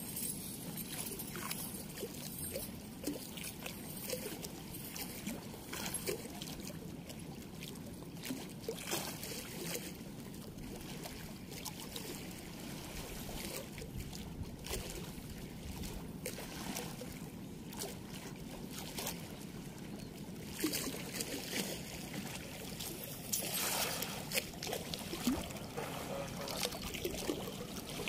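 River water running steadily, with scattered light clicks and knocks and a few louder rushes of noise in the last third.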